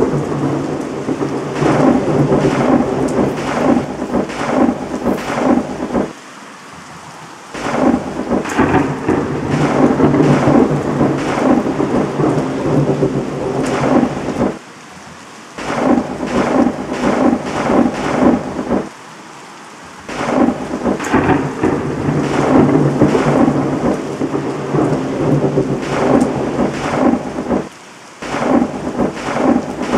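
Thunderstorm sound effect: heavy rain with rolling thunder, laid over a sunny scene. It falls away to a low level four times, for a second or so each.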